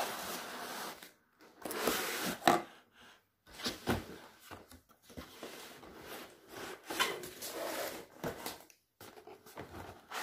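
Cardboard packaging scraping and rustling as a laptop is slid out of its box and its protective sheet lifted off, in several spells of handling noise with a few sharp knocks.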